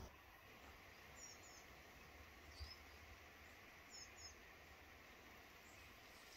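Near silence with faint, high bird chirps: a quick pair about a second in, a single chirp between, and another quick pair about three seconds after the first.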